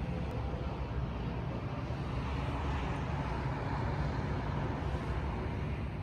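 Steady distant city traffic rumble through an open window, swelling a little in the middle.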